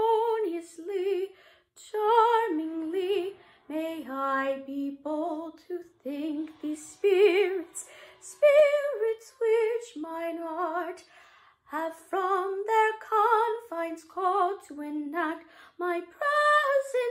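A woman singing a melody solo in short phrases, with vibrato on the held notes.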